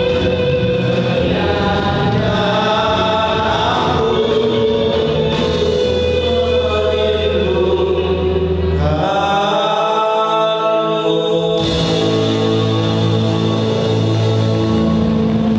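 Two men singing a song duet into handheld microphones over instrumental accompaniment with a steady bass line.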